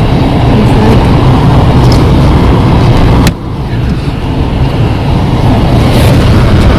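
Car driving slowly over packed snow, heard from inside the cabin: a loud, steady low rumble of engine and road noise. A sharp click comes a little over three seconds in, after which the noise briefly drops and then builds back.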